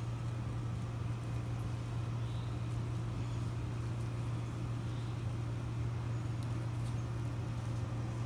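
A steady low hum, like a machine running, with a few faint high chirps now and then.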